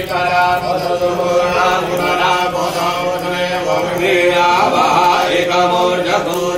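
Sanskrit Hindu mantra chanting, a continuous recitation in more than one voice, with pitches that shift over a steady held note.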